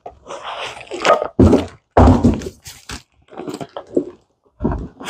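Cardboard box and packing being shifted and rustled, with a series of knocks and thuds as a heavy Spec clutch and flywheel assembly is lifted out and set down on a wooden bench.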